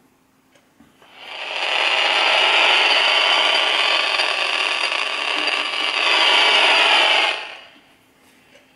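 AM radio speaker sounding the electromagnetic interference it picks up from a household electronic device: a loud rushing noise with a faint steady buzz in it. It swells up about a second in and dies away after about seven seconds.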